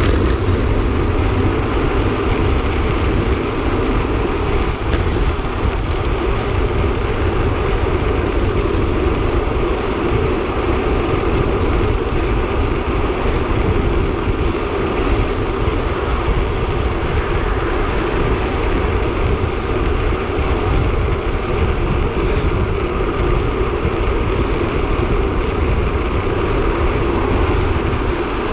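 Steady rush of wind over the microphone of a camera on a road bike riding at speed, with road and tyre noise underneath.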